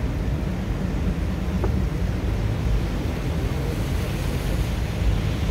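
Steady low rumble inside a car's cabin on a rainy road: engine and wet-tyre noise with rain falling on the car.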